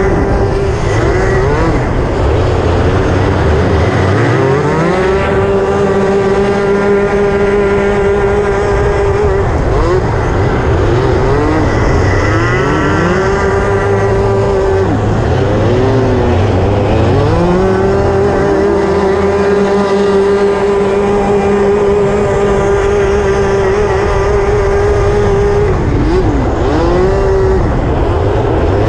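Racing kart engine at full throttle, heard close up from the kart itself: it holds a steady high pitch for long stretches, dipping and climbing back up several times.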